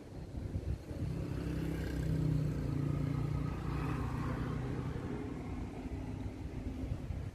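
The 2.5-litre four-cylinder diesel engine of a 2014 Nissan Navara pickup running in its engine bay, a steady low hum that grows louder from about one to four seconds in.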